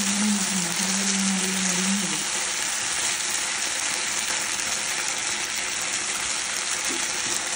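Chicken slices sizzling steadily as they fry in a thin creamy sauce in a non-stick pan, stirred and turned with a spatula. A low steady hum sounds for about the first two seconds.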